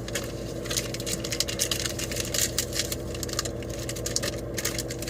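Trading-card packs and cards being handled: a quick, irregular run of crinkling and rustling from wrappers and card stock, over a steady low hum.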